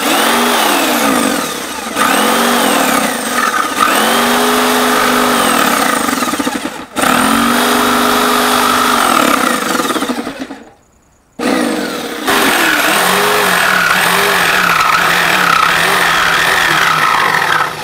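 Corded jigsaw cutting through the top of a plastic water tank, its motor whine rising and falling in pitch as the blade bites. The saw stops twice: very briefly about seven seconds in, and for about a second a few seconds later, before starting again.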